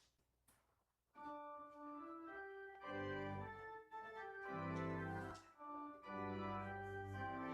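Church organ starting to play about a second in, sustained chords with deep bass notes entering a couple of seconds later.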